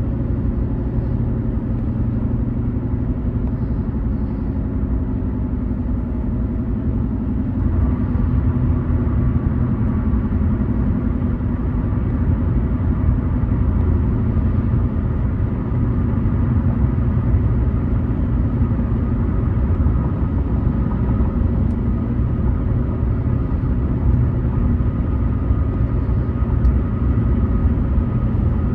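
Car driving on a highway: steady engine and tyre rumble, a little louder from about eight seconds in, with a faint steady whine over it after that.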